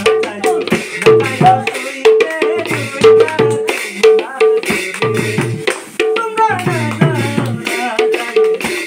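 Khol, a two-headed barrel drum, played by hand in a fast devotional rhythm, with ringing treble strokes and recurring groups of deep bass strokes. A pair of brass hand cymbals clashes along in steady time.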